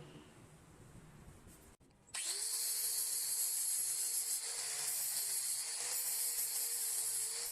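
A workshop tool starts about two seconds in and runs steadily: a loud, high hiss with a faint motor hum under it.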